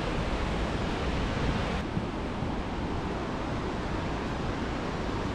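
Steady rushing roar of Linville Falls' cascading water. It changes slightly in tone about two seconds in.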